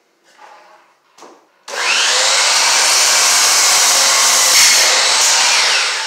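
A loud electric motor-driven tool starts up suddenly about two seconds in, runs steadily, and begins to wind down near the end.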